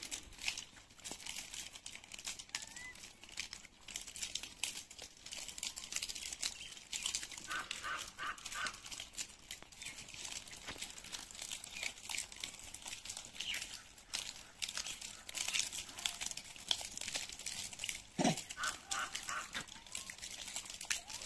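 Rhesus macaques cracking peanut shells: a dense, steady crackle of small dry clicks. Short bursts of high squeaky calls come twice, near the middle and near the end, and one dull thump is heard just before the second burst.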